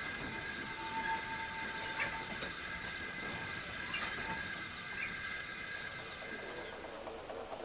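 Railway sound effects: a train rolling slowly, with a steady high-pitched squeal that fades out near the end and sharp clicks at about 2, 4 and 5 s.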